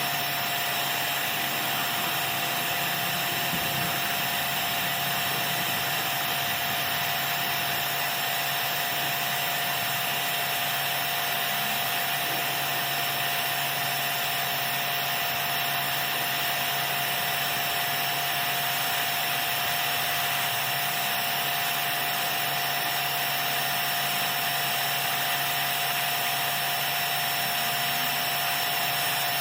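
Pressure washer running steadily: a constant motor whine over the hiss of the spray, unchanging throughout.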